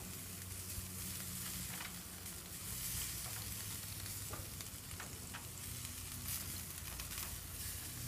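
Bacon-wrapped scallop and chicken skewers sizzling on a hot gas grill as mopping sauce is brushed onto them, a steady hiss with scattered small crackles and a low hum underneath.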